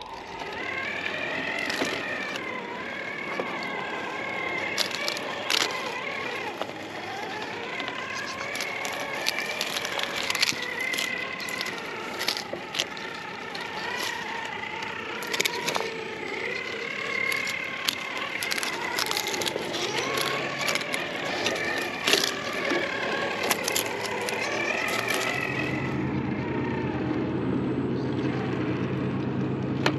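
Small RC crawler's brushless electric motor and geartrain whining, rising and falling in pitch with the throttle, with sharp clicks and crunches of its tyres on rock. Near the end the whine gives way to a lower, steadier hum.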